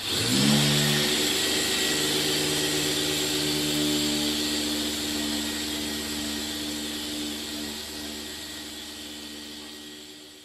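Small handheld mini polisher spinning up and running steadily with a whine, buffing a car's lower door sill with a soft refining pad. It fades gradually toward the end.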